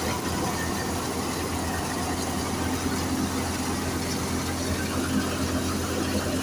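Wheat thresher running: a steady mechanical drone with a constant low hum.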